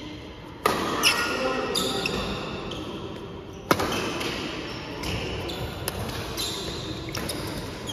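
Badminton rackets striking the shuttlecock during a rally: several sharp strikes, the loudest about a second in and again near the middle.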